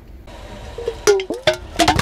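Objects crushed under a car tyre, a quick run of sharp cracks and crunches mixed with short squeaks that bend in pitch, growing busier through the second half.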